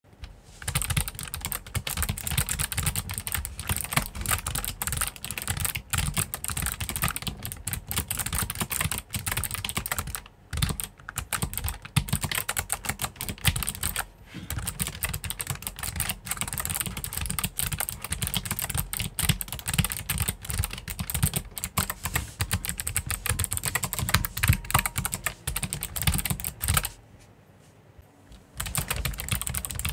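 Motospeed CK94 mechanical keyboard with Kailh short switches being typed on quickly and continuously, a dense run of key clicks. The typing stops for about a second and a half near the end, then resumes.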